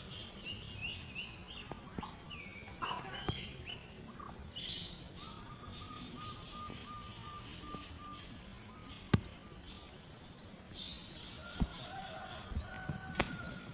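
Several birds chirping and calling over steady outdoor background noise, with a few sharp clicks, the loudest about nine seconds in.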